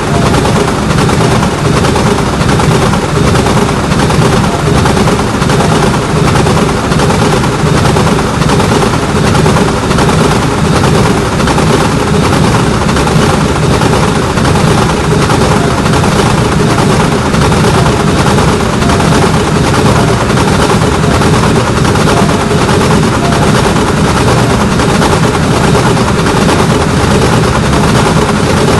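A train's cars pass close by, the wheels clacking in an even, repeating rhythm over a loud, steady rumble.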